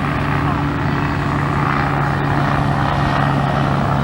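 Light propeller aircraft's piston engine droning steadily overhead, a constant low tone over a broad rushing noise.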